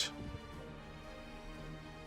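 Quiet background music with soft held notes.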